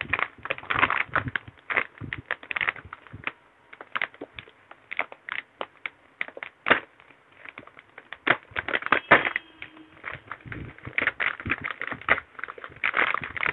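Clear plastic wrapping crinkling and crackling in irregular bursts as it is pulled open and handled by hand, unpacking a water-purifier membrane cartridge.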